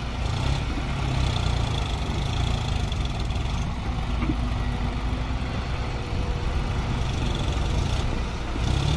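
Diesel engines running steadily: a John Deere tractor idling while a Hyundai excavator works beside it.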